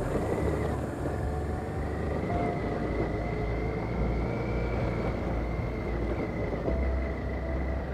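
Honda Transalp motorcycle engine running steadily under way on a rough, water-rutted dirt track, with tyre and road noise.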